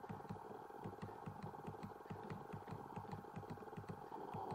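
Faint steady background hum with a regular low pulsing, about six pulses a second, and faint ticks over it.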